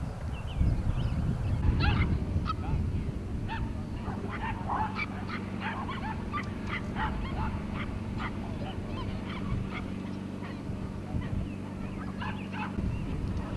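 Many short, irregular bird calls over a steady low hum.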